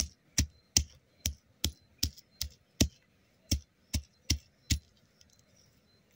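Stone pounder crushing garlic cloves on a granite slab: about a dozen sharp stone-on-stone knocks, roughly two and a half a second, stopping a little before the end.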